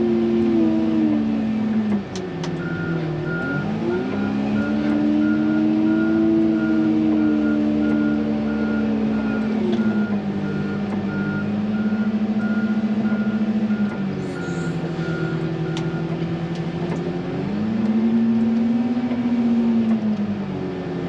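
XCMG wheel loader's diesel engine revving up and dropping back again and again while plowing snow. Its reversing alarm beeps steadily from a couple of seconds in until about three-quarters of the way through.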